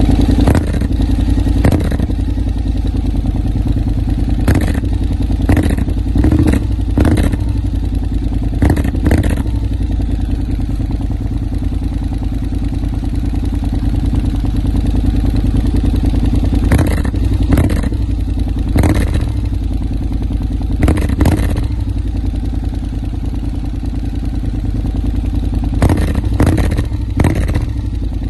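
Honda X-ADV 750's parallel-twin engine running through an Arrow Race-Tech titanium slip-on exhaust, a steady deep rumble with short sharp bursts now and then.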